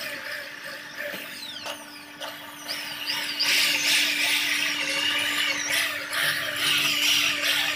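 Corded electric drill boring into the sheet-metal wall of an electrical panel. The motor runs with a steady whine while the bit grinds and gives short falling squeals against the metal, louder from about three and a half seconds in.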